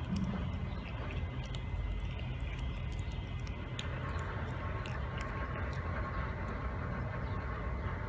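Cat chewing and licking raw chicken wings, with scattered short wet clicks, over a steady low rumble in the background.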